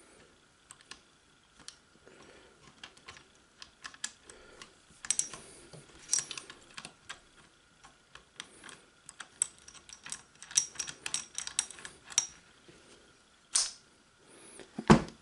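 Steel parts of a Remington Model 8 rifle clicking, scraping and rattling in irregular bursts as its takedown assembly is unscrewed and separated by hand, with a heavier knock near the end.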